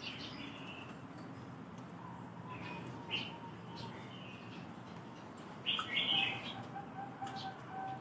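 Short high chirps from small birds come and go, loudest in a burst about six seconds in. From about then a caged zebra dove (perkutut) starts a faint run of short, evenly spaced low coo notes.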